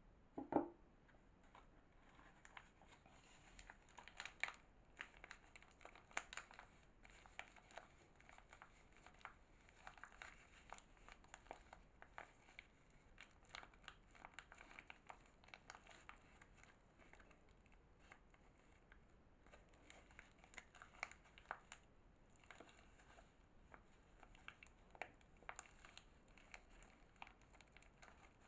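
Soap packaging being unwrapped by hand: a steady run of soft crinkling and tearing of wrapping, with a single sharper knock about half a second in.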